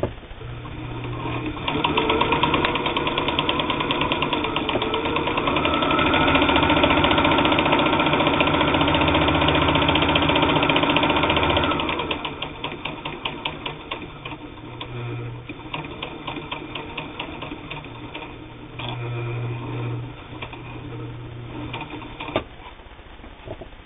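Janome-made New Home manual zigzag sewing machine with all-steel gear drive, sewing a zigzag stitch through cotton sheeting, its hook and bobbin following the zigzag back and forth. It runs fast and steady for about ten seconds, then slows to separate stitch ticks with short bursts of motor hum.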